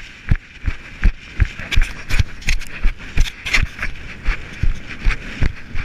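Footfalls of a runner jogging over grassy mountain ground: steady thuds about three a second, with swishing between them.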